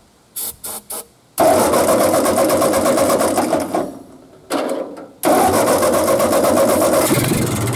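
Ford 8N tractor's four-cylinder flathead engine being cranked over by the starter with fuel squirted into the carburetor. It runs in two long cranking stretches with a short one between, after three quick short noises at the start. The engine is trying to fire after seven years sitting, with a gummed-up, rusty carburetor.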